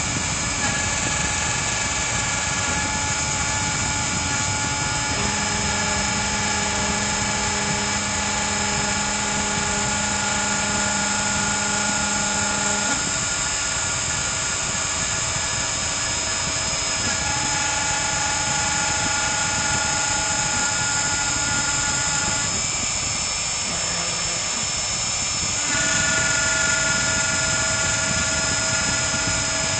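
CNC router engraving wood: its spindle runs steadily under a set of whining tones that jump to new pitches every few seconds as the machine moves.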